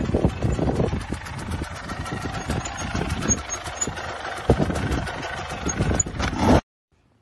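Dirt bike engine running at low revs while the bike rolls down a steep concrete slope, with rattles and knocks from the bike and one louder thump about four and a half seconds in. The sound cuts off suddenly near the end.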